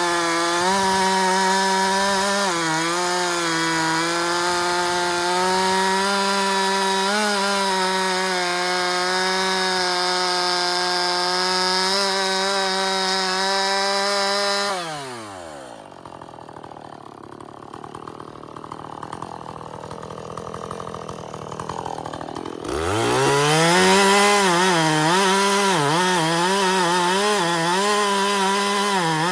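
Husqvarna 450 two-stroke chainsaw at full throttle cutting through wood, its pitch wavering under load. About halfway through it drops to idle for several seconds, then revs back up and dips repeatedly as it bites into the cut again.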